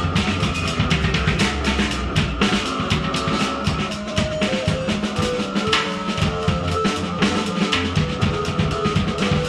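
Live noise music from a drum kit and a Casio keyboard: fast, dense drumming with bass drum and snare over held electronic keyboard tones.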